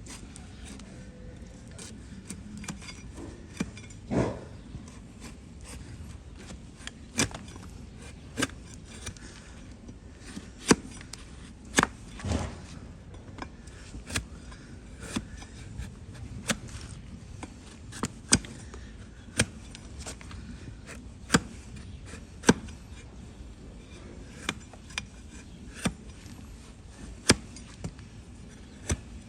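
A hoof-trimming tool cutting into a donkey's hoof horn: sharp, irregular snaps and clicks, about one a second. Two longer, heavier cuts come about four seconds in and again around twelve seconds.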